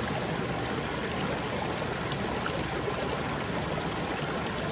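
Shallow river water running and rippling over rocks, a steady rushing sound.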